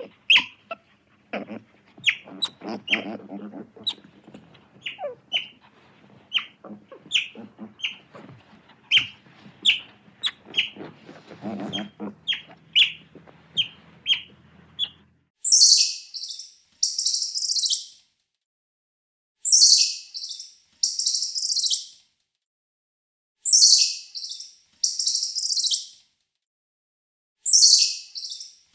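Sea otters squeaking: many short, high, falling chirps, several a second, over faint lapping water. About halfway through, the sound switches to a squirrel's harsh, high chattering calls, in pairs of short bursts repeated about every four seconds.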